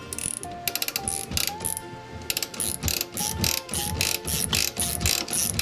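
Ratchet wrench clicking quickly and unevenly as it turns the winder of a ShortCut auto-glass tool, pulling the cutting wire through the urethane around the truck's back glass.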